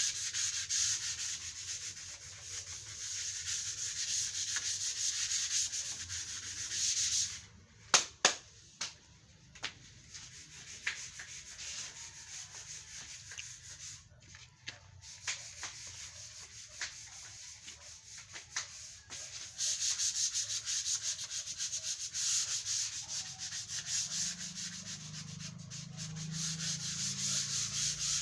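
240-grit sandpaper rubbed back and forth over wood coated with sanding sealer, in quick, even scraping strokes: smoothing down the first sealer coat. The strokes drop off about a quarter of the way in, with a couple of sharp clicks and only faint rubbing, then pick up strongly again about two-thirds through.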